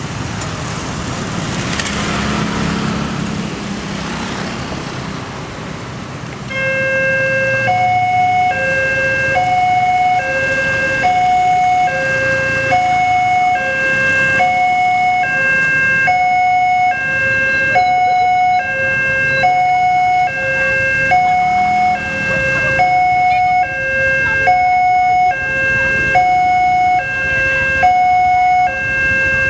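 Railroad crossing warning bell starting about six seconds in: an electronic two-tone alarm that alternates a low and a high note, about two notes a second, warning of an approaching train. Road traffic is heard before it starts.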